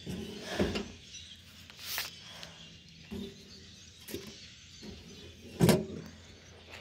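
A few scattered knocks and rustles, the loudest a clunk about five and a half seconds in: handling at a metal roadside mailbox while letters are put in.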